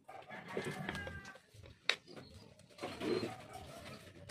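Doves cooing in the background, with a single sharp click just under two seconds in as starter motor parts are handled.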